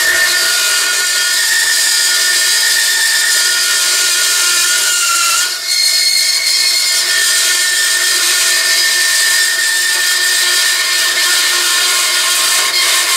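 Vertical metal-cutting bandsaw sawing through round metal stock: a steady high hiss with a ringing tone, with a short dip about five and a half seconds in. The stock is braced by a C-clamp resting on the saw table, so the cut goes smoothly, without the blade grabbing and spinning the part.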